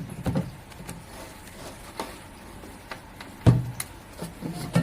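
Irregular knocks and clunks from the parts of a stainless steel electric food chopper being handled, the loudest about three and a half seconds in.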